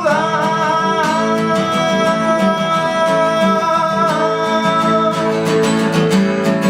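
Acoustic guitar strummed steadily as the accompaniment to a song, with a voice holding one long sung note for about the first four seconds.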